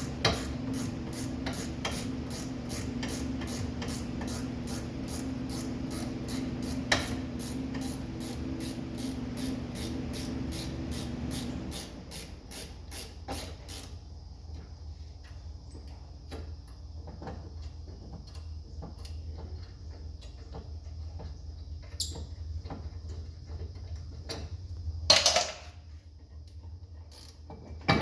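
Hand-tool work on a car's brakes: a steady hum under rapid, even clicking, about three clicks a second, which stops about twelve seconds in, followed by scattered ticks and a loud metal clank near the end.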